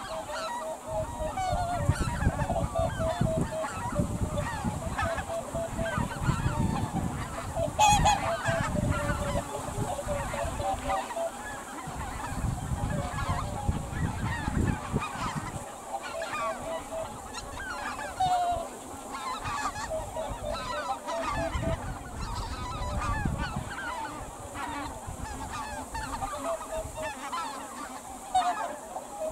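A flock of geese, greater white-fronted geese and cackling geese, calling continuously with many short overlapping high honks. A low rumble comes and goes beneath the calls.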